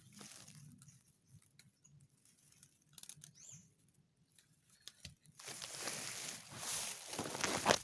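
Scattered faint clicks and rustling, with a faint high chirp in the middle. Near the end it swells into a couple of seconds of loud rustling.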